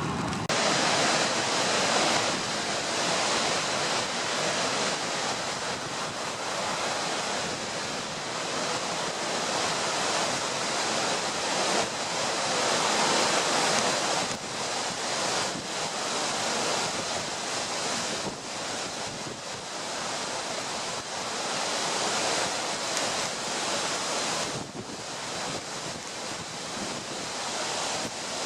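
Large wind-driven lake waves crashing, with strong wind blowing across the microphone; the roar swells and eases every few seconds.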